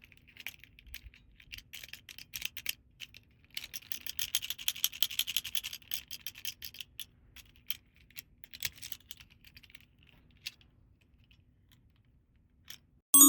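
Small plastic toys and packaging being handled: quick scratching and clicking, densest a few seconds in, then thinning out. A bright bell-like chime strikes at the very end.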